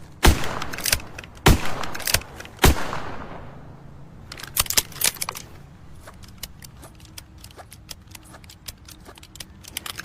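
Smith & Wesson 360J .38 Special revolver fired three times, about a second apart, each shot with a reverberating tail. From about the middle on, a run of quieter metallic clicks and rattles.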